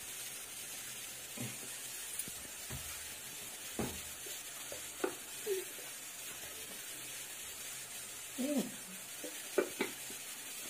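Oil heating in a steel kadai on the stove: a faint, steady sizzle with scattered small pops and clicks.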